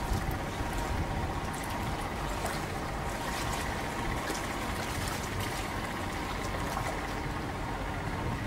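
Steady wash of water and wind around a boat, with a faint even motor hum under it and a few light splashes.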